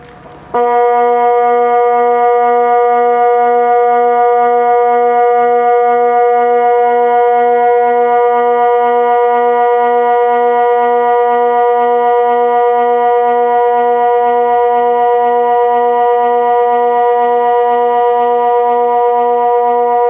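Kockum Sonics Delta 4 electronic siren sounding the water alarm (Wasseralarm): a loud, steady, organ-like tone that starts abruptly just after the beginning and holds without rising or falling, with a faint low throb about twice a second. The long unbroken tone is one of the water-alarm signal's repeated low steady blasts.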